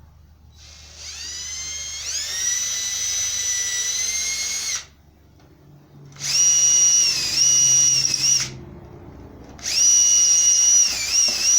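Electric drill run three times, the first time spinning up with a rising whine, its pitch dipping now and then as the bit bites. It is drilling bolt holes through cured plaster gauze mold backing.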